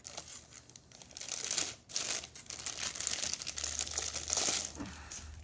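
Clear plastic bag crinkling and rustling in bursts as a small car amplifier is pulled out of it by hand.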